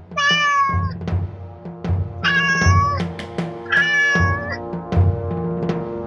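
Cat meowing three times, each meow about a second long, over music with a steady drum beat.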